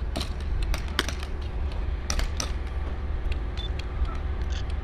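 Wind buffeting the camera microphone as a steady low rumble, with scattered sharp pops of airsoft gunfire from across the field, several about two seconds in.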